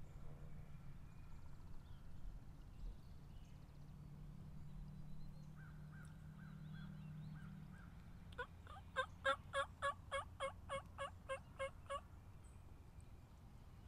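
Wild turkey yelping: a run of about fourteen quick, evenly spaced yelps over some three and a half seconds, starting about eight seconds in.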